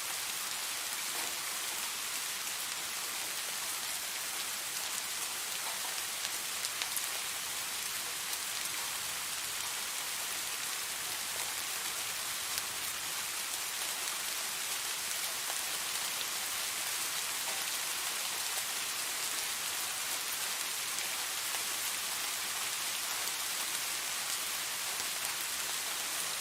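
Steady rain falling on a surface, an even hiss with faint individual drop ticks.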